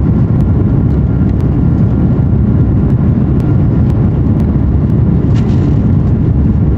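Steady low cabin noise of an Airbus A330-300 climbing out after takeoff: its Rolls-Royce Trent 700 engines at climb power and the airflow over the fuselage, heard from a window seat over the wing. A short hiss about five and a half seconds in.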